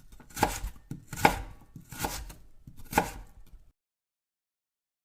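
Knife chopping food on a cutting board: four strong strikes about a second apart with lighter taps between them, then the sound stops abruptly a little past halfway.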